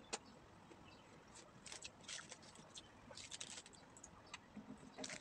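Faint, scattered clicks and crackles of eating crispy breaded fried chicken by hand, coming in short clusters.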